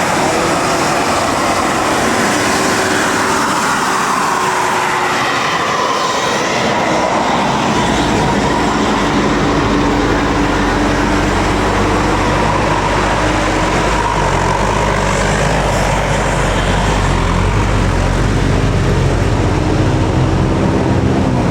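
Bus 'telolet' musical air horns sounding in long, slowly gliding tones over a bus's diesel engine, with the engine's low rumble coming in strongly about a third of the way in and staying to the end.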